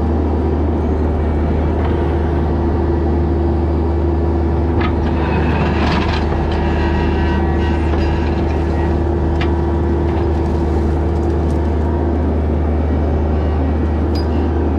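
Mini excavator's diesel engine running steadily with a deep, even hum, and a few light clanks over it.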